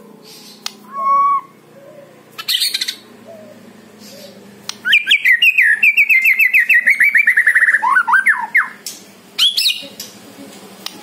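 White-rumped shama singing: a clear whistle about a second in and a short burst of notes, then a long run of rapid repeated notes, several a second, falling slightly in pitch and ending in a few lower notes, followed by another short burst.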